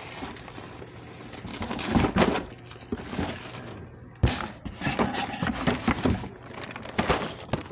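Packaging being handled during unboxing: irregular rustling and scraping with several knocks, one sharp knock about four seconds in.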